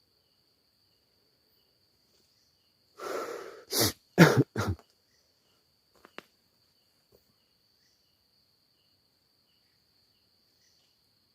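A person coughs three times in quick succession, just after a short breathy rush, about three to five seconds in. A steady high insect trill runs underneath.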